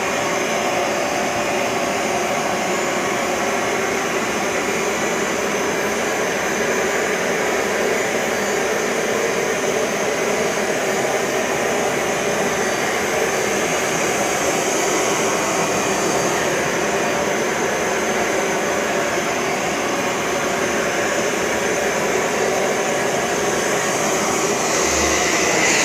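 Bissell ProHeat 2X Revolution Pet Pro upright carpet cleaner running steadily while it cleans carpet, its suction motor giving a constant loud whine.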